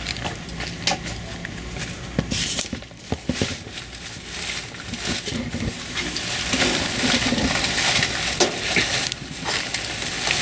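Plastic trash bags rustling and crinkling as they are grabbed and handled, with scattered knocks and clicks; the rustling grows louder about halfway through.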